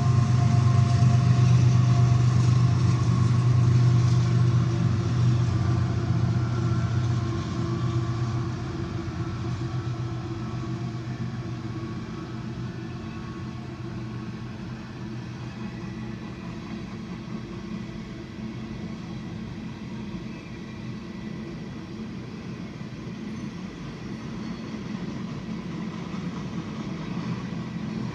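A passing train: a locomotive engine's steady low drone, loud at first and fading after about eight seconds into a quieter, steady rumble of the train.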